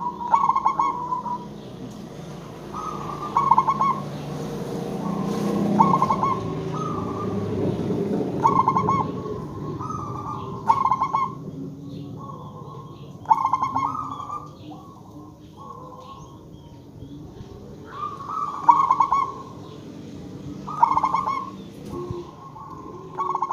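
Zebra dove (perkutut) cooing over and over, each song a short run of quick, stuttering trilled coos, repeated every two to three seconds.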